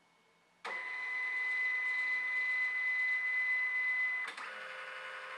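Scan carriage motor of a Canon MF110-series laser multifunction printer's flatbed scanner running during a scan. It starts suddenly about half a second in with a steady high whine, then changes to a different, quieter steady pitch about four seconds in.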